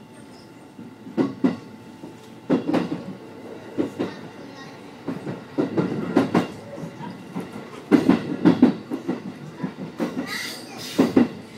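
Electric commuter train's wheels clattering over points and rail joints, heard from behind the driver's cab: irregular clusters of knocks and thuds over a steady running hum.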